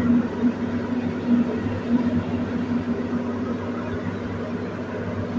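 Steady machine hum: a low drone with a wavering tone over a low rumble.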